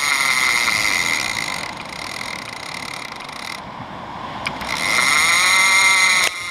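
Clicker ratchet of a Penn International big-game reel buzzing as line is pulled off the spool: a shark running with the bait. The buzz eases off in the middle and picks up again about five seconds in.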